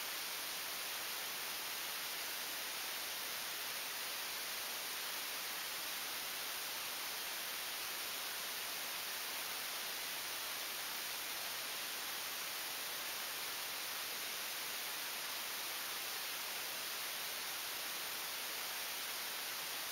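Steady, unchanging static hiss with no swells or separate sounds in it.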